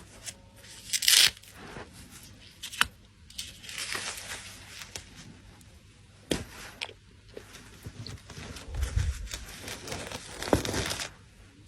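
Irregular rustling and crinkling handling noise, with a few sharp clicks; the loudest bursts come about a second in and again near the end.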